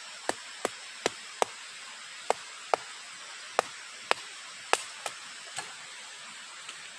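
About a dozen sharp, irregularly spaced knocks or cracks, some much louder than others, over a steady hiss.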